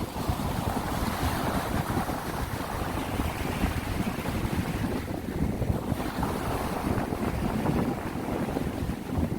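Sea waves washing in, with wind gusting across the microphone in a heavy, uneven rumble.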